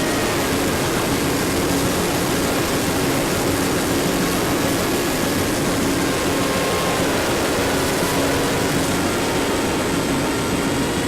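Micro Skyhunter RC plane in flight: its electric motor and propeller run at a steady pitch that dips slightly about seven seconds in, under a heavy, even rush of wind.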